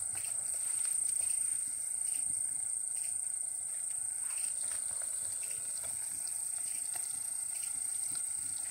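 Insects buzzing in a steady high-pitched drone, over the faint hiss of cornmeal-dusted fish frying in a pot of oil over a wood fire.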